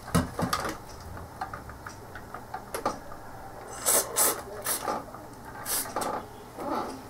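Hands working on parts inside an opened CRT monitor: irregular clicks, rattles and scrapes of plastic and metal, with a few sharper, brief scraping strokes about four seconds in and again near the end.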